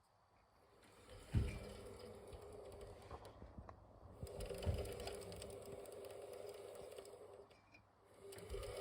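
Beko washing machine's inverter drive motor running with a steady hum and fast clicking from its motor bearings, a fault the uploader traced to a flattened wavy preload ring between the rear bearing and the housing. It starts with a knock about a second and a half in, drops out briefly near the end and starts again.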